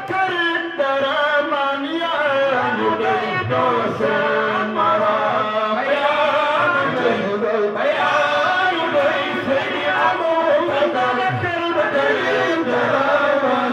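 A group of men chanting a devotional song in unison, one lead voice on a handheld microphone with others joining in.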